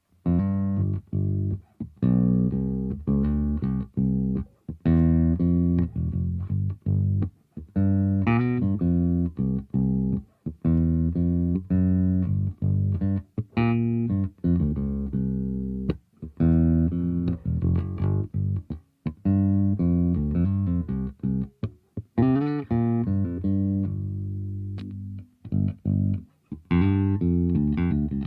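Aria Pro II CSB Deluxe electric bass guitar played solo: a run of plucked bass notes and phrases with short stops between them, now and then reaching into higher notes.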